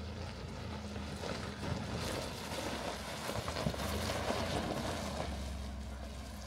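Chevrolet Colorado pickup truck driving past over a gravel riverbed: tyres crunching and popping on the stones over a low engine hum, growing louder to a peak about halfway through as it comes closest, then easing.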